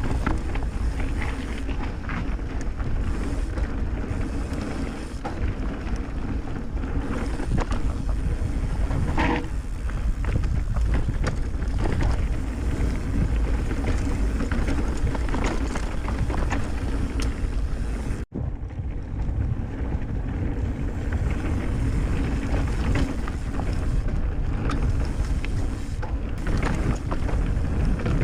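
Mountain bike rolling fast along a dirt trail: tyre noise and rumble over the ground with constant small clicks and rattles, and wind buffeting the microphone. The sound drops out for an instant about eighteen seconds in.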